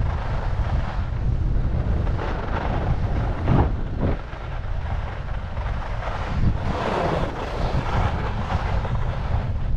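Wind buffeting an action camera's microphone during a downhill ski run, a steady low rumble, with the hiss of skis on snow swelling about two-thirds of the way through and a brief thump about a third of the way in.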